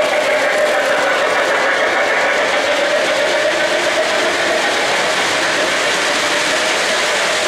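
Three-rail O-gauge model trains running on metal track: a steady rolling noise of wheels and motors.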